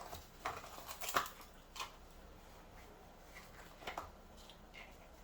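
A few scattered light clicks and knocks of kitchen utensils and bowls being handled, the sharpest about a second in and another near four seconds in.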